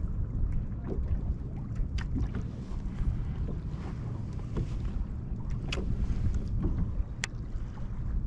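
Wind buffeting the microphone over water lapping at a fishing kayak's hull, with three sharp taps.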